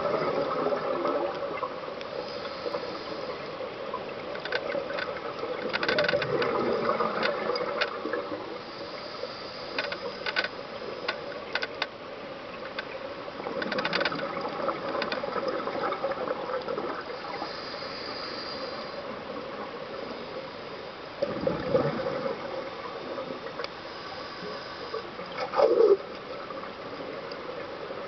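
Scuba diver breathing underwater through a regulator: a hiss on each inhale, then a gurgling rush of exhaled bubbles, repeating about every seven or eight seconds, with scattered small clicks.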